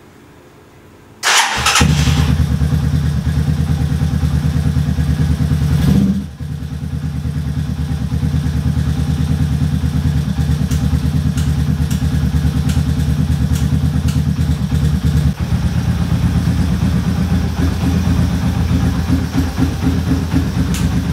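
Motorcycle engine started about a second in, catching almost at once, then running steadily at idle. The engine note swells briefly about six seconds in before settling back to an even idle.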